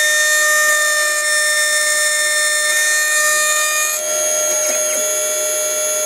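Xhorse Dolphin XP005 key cutting machine's spindle whining at a high pitch as its 2.5 mm cutter mills a HON66 Honda key blank. The whine changes tone about three seconds in and again about a second later.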